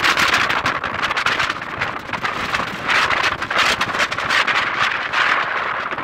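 Strong gusty wind on the microphone: a loud, rushing noise that swells and eases in gusts every second or so.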